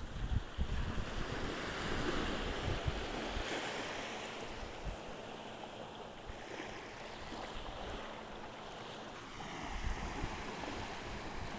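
Small waves washing up over sand at the shoreline, with wind buffeting the microphone, gusting hardest at the start and again near the end.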